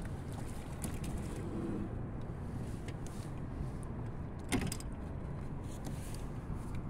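Steady low rumble of wind and choppy water around a kayak, with a single sharp knock about four and a half seconds in.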